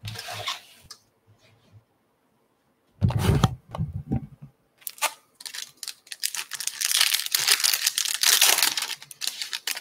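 Foil wrapper of a 2022 Bowman baseball card pack crinkling and tearing as it is ripped open by hand, a dense rustle from about five seconds in to near the end. A couple of dull thumps come about three seconds in, before the tearing starts.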